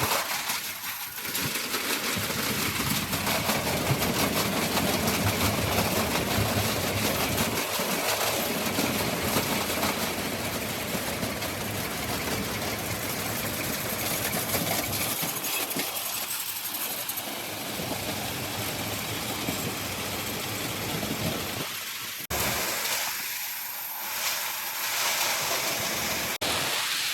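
Heavy machinery running: a steady, loud mechanical din with no clear rhythm, changing abruptly about 22 seconds in and again about 26 seconds in.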